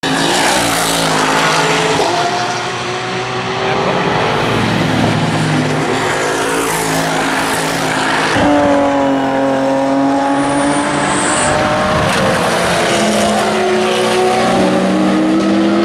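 Several GT race cars' engines passing at racing speed, two or more at once. Each engine rises and falls in pitch in steps as it changes gear through the corner. The sound changes abruptly to another pass a little past halfway.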